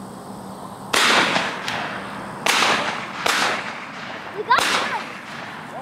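Four shotgun shots at dove hunting, about a second in, then roughly a second and a half, under a second, and a second and a quarter apart, each with a short echoing tail.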